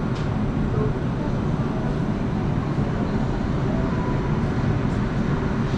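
Steady low hum and rumble of a Brussels metro train standing at an underground station platform, mixed with the hubbub of the station.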